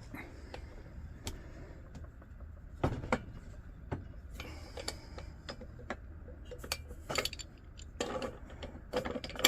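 Scattered metal clinks and taps of hand tools being handled and set down against metal, some in quick clusters, over a faint steady low hum.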